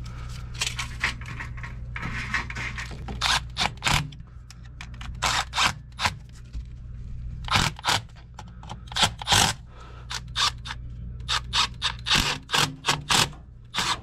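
Cordless drill/driver tightening the hose-clamp screws of a no-hub coupling on a drain pipe, run in short, quick pulses that come in clusters, over a steady low hum.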